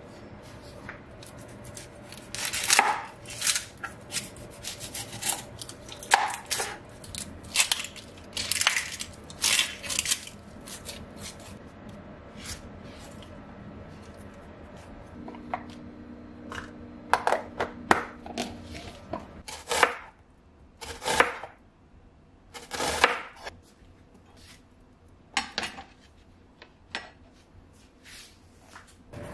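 Dry, papery onion skin being peeled off by hand on a cutting board: scattered crackles and rustles with light knocks against the board.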